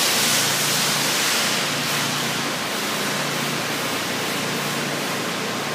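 Water spraying from the nozzles of a wheel and undercarriage wash system: a steady hiss of spray over a low hum, easing slightly after about two seconds.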